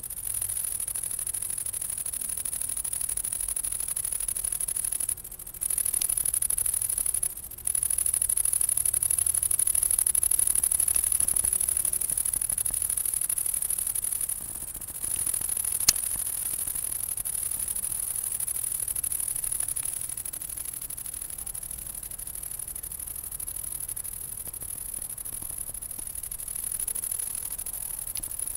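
Steady high-pitched hiss with a low rumble beneath: the handheld camera's own recording noise and handling. The sound drops out briefly three times, and there is one sharp click about halfway through.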